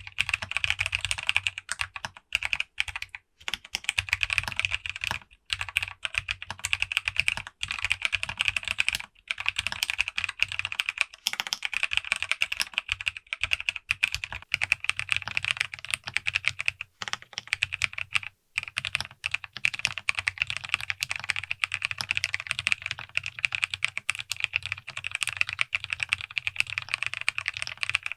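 Fast, continuous typing on a custom Alice-layout mechanical keyboard with an acrylic case, a POM plate and lubed Kailh Clione Limacina tactile switches, giving a deep, thocky keystroke sound. It breaks off in a few short pauses.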